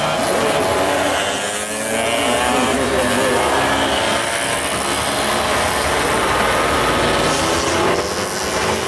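Several two-stroke 116 cc underbone racing motorcycles running hard past at once. Their engines buzz high and their pitch climbs and drops as they accelerate and shift.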